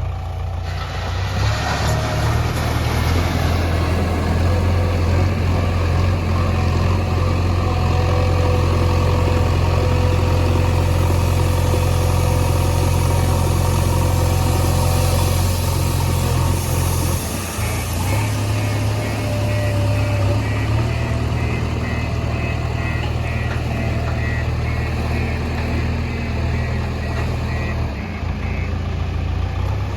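JCB backhoe loader's diesel engine running steadily, with a brief dip and change in its note a little over halfway through.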